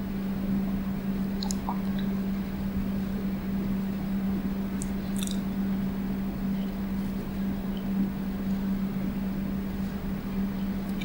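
Room tone with a steady low hum and a few faint clicks.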